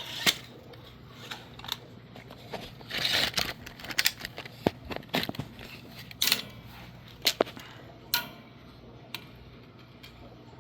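Handling noise: a run of sharp, irregular clicks and knocks, with a short rustle about three seconds in, over a faint steady hum.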